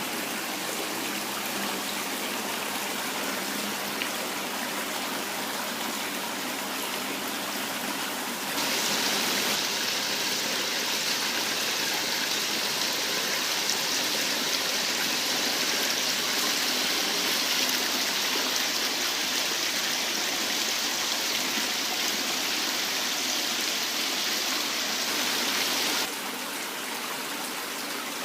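Water running down a small artificial decorative waterfall, a steady splashing rush. About a third of the way in it turns suddenly louder and brighter, and it drops back just as suddenly near the end.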